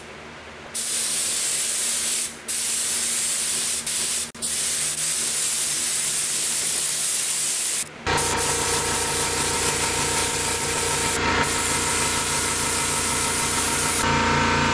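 Gravity-feed air spray gun hissing in long bursts as the trigger is pulled, spraying primer, with short breaks between passes. About 8 seconds in, a steady motor hum starts and runs on under the spray.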